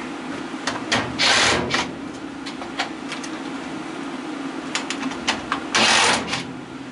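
Cordless drill with a quarter-inch nut driver running in two short bursts, one about a second in and one near the end, backing bolts out of a washing machine's sheet-metal control panel. Light metallic clicks and clanks come in between.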